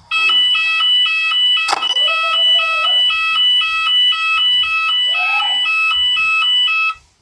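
Electronic fire alarm sounder of a shop's voice-evacuation system, alternating between a high and a low tone about twice a second. It is the evacuation signal sounding between spoken warnings of a fire in the store. It starts suddenly and cuts off abruptly near the end.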